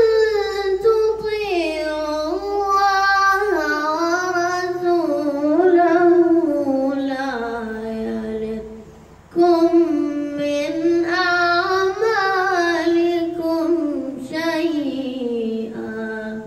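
A boy reciting the Quran in a melodic chant (tilawah). He sings two long phrases, each sinking in pitch to close, with a short breath pause a little past halfway.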